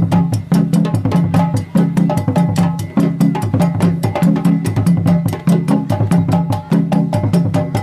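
Live djembe drumming: a fast run of sharp hand strokes over a repeating lower drum pattern, playing a dance rhythm without pause.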